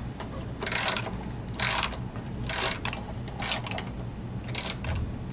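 Ratchet socket wrench clicking in five short bursts, about one a second, as the handle is swung back between turns while tightening a new spark plug into the snow blower's cylinder head.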